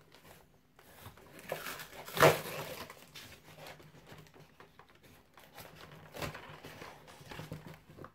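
Cardboard packaging rustling and scraping as a hand saw is worked out of its shipping box, with one sharp, much louder knock about two seconds in.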